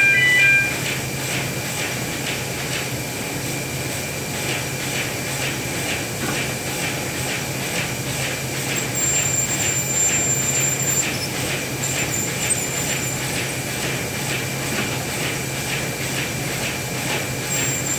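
Wohlenberg Sprinter 7011 paper cutter running with a steady hum and a regular ticking about twice a second at its toothed clutch, which has a clutch problem. A short electronic beep sounds right at the start.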